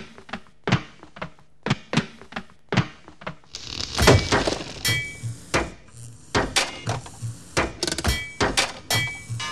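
Rhythmic sound collage of thuds and knocks sampled in a car scrapyard, repeating in a steady beat of about two to three hits a second. From about four seconds in it grows denser, with a hiss and brief high beeping tones among the hits.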